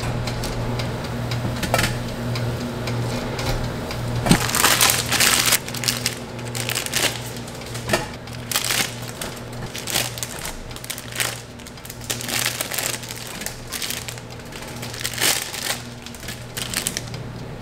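Metal tongs clicking and crisp croffles scraping and crunching as they are lifted and stacked on a steel tray, in a run of irregular crackling strokes over a steady low hum.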